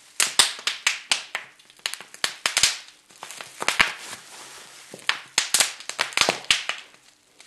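Bubble wrap being squeezed by hand, its bubbles popping in quick irregular clusters of sharp pops with short pauses between.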